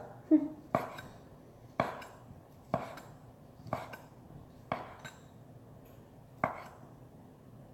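Kitchen knife chopping sausage on a cutting board: six sharp knocks, roughly a second apart, with a longer gap before the last.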